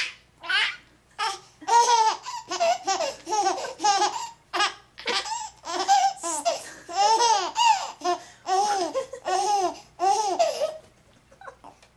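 A four-month-old baby laughing hard: a run of high, rising-and-falling laughs, about two a second, stopping about a second before the end.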